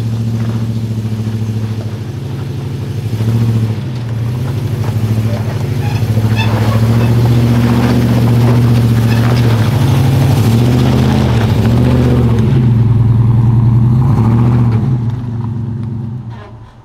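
Nissan Patrol 4WD engine working at low revs as the vehicle climbs a rocky track, the revs rising and falling, with knocks of the tyres on rock. It grows louder as the vehicle comes close, then fades away near the end.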